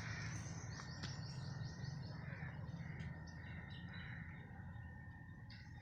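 Birds calling, with crow-like caws roughly once a second, a short run of quick high chirps in the first two seconds, and a steady low background rumble.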